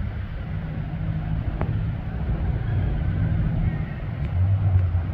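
Steady low engine rumble with held low droning tones that drop in pitch about four seconds in, over a haze of outdoor noise, with one sharp click about a second and a half in.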